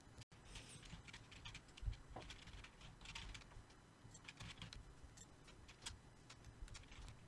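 Faint, irregular clicks and taps, with one low thump about two seconds in.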